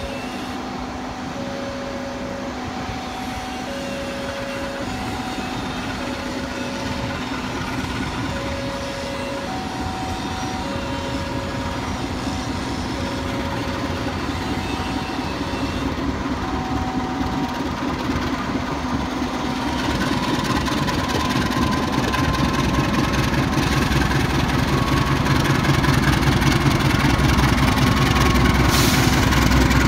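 A GE CC 206 diesel-electric locomotive approaching slowly and passing close by, its engine rumble growing steadily louder to a heavy throb as it draws level near the end. Through the first half, a two-tone chime repeats about once a second, then fades out.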